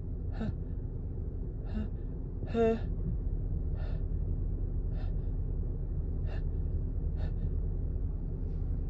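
A woman's short, breathy gasping inhales, about seven in all, one of them a louder voiced 'ah' a little under three seconds in, as a cold-driven sneeze builds without yet coming. A steady low hum runs underneath.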